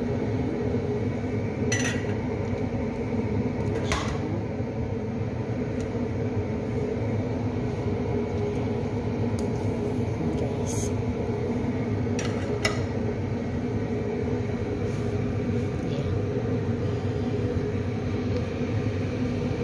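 Sliced ginger, onion and tomato tipped from a plate into a pot of boiled water on a gas stove, with a few short clinks of plate against pot. A steady humming drone runs underneath.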